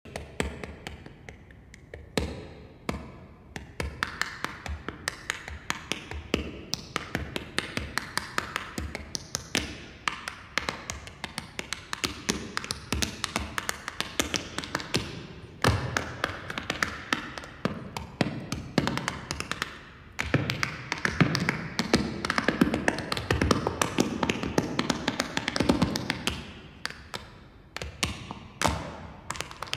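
Tap shoes striking a stage floor in a fast tap-dance routine, a dense run of quick sharp taps that grows louder about halfway through, with music underneath.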